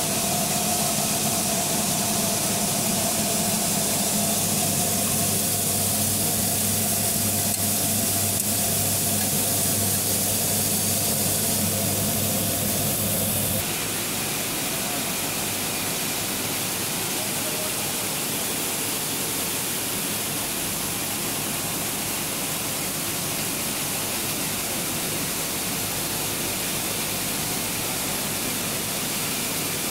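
Plastic pulveriser machine running steadily: a continuous rushing noise from the mill and blower with a steady low hum under it. About 14 seconds in, the sound changes abruptly to a slightly quieter, more even rush.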